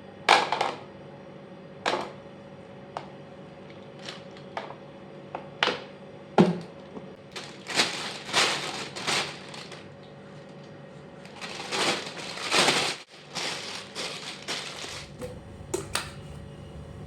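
Scattered clacks and knocks of household items being handled and set down, with two longer rustling or scraping stretches, over a faint steady hum.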